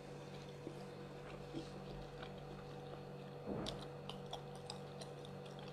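Faint chewing of someone eating, with small scattered mouth clicks and a slightly louder bite or crunch about three and a half seconds in, over a steady low hum.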